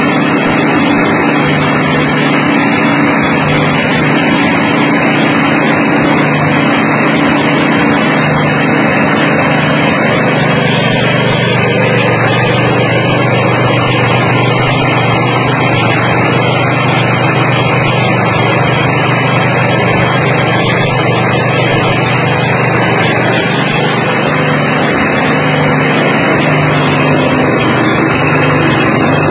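Mini rice milling machine running steadily while milling paddy into white rice, a loud, even mechanical hum.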